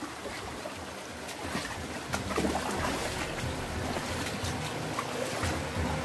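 Shallow stream water running over rocks, with scattered splashes and knocks of footsteps wading through it.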